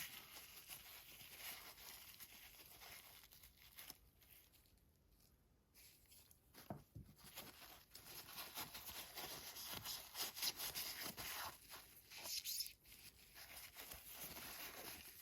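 Faint scratchy rubbing and crinkling of a paper towel wiping an oil-soaked CNC router bit, in short uneven strokes. It pauses for a moment near the middle, then picks up again more busily.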